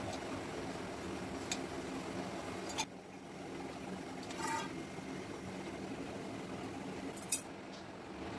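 Light clicks and taps of stainless steel kitchenware, the noodle press being oiled and a steel plate handled, over a steady low hum; about four and a half seconds in a piece of steel gives a brief metallic ring, and a sharp click comes near the end.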